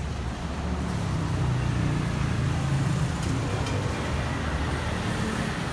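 Low rumble of street traffic, swelling for a couple of seconds from about a second in and then easing off.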